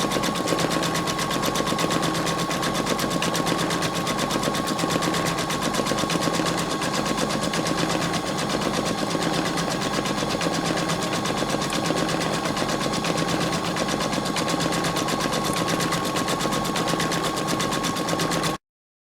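Embroidery machine stitching at a rapid, even rate with a steady whine, sewing the underlay stitches of the first colour. It cuts off suddenly near the end.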